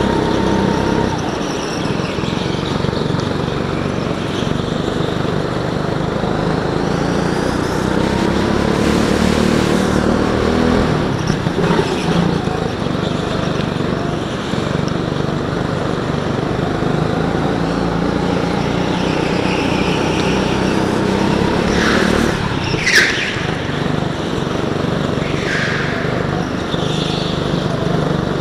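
Go-kart engine running hard from onboard, its revs rising and falling through the corners. In the second half come several short, high tyre squeals, the loudest about two-thirds of the way through.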